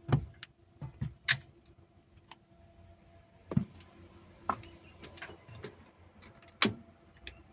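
Irregular metal clicks and knocks from a small chain hoist and its chain being worked to shift a heavy alternator into line with an engine flywheel.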